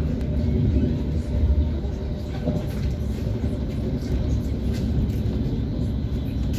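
ES1P 'Lastochka' electric train running at speed: a steady low rumble of wheels on the rails, with faint knocks of the wheels over the track.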